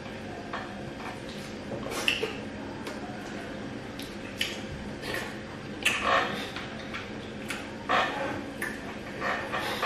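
Eating sounds of two people having eba with ogbono soup by hand: chewing and mouth smacks, with scattered small clicks and light knocks of bowl and plate. The loudest moments come about two, six and eight seconds in.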